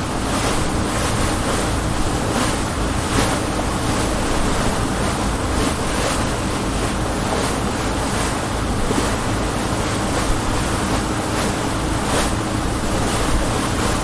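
Speedboat running at speed across the water: a steady low engine drone under the hull slapping through waves and spray splashing up every half second or so, with wind buffeting the microphone.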